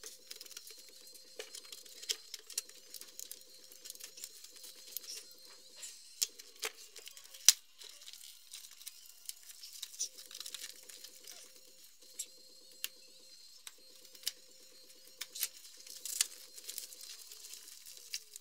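Parcel packaging being cut with a small blade and torn open by hand: scattered sharp snaps and clicks, with stretches of tearing and crinkling of packing tape and paper wrapping. A faint low buzz comes and goes in short stretches.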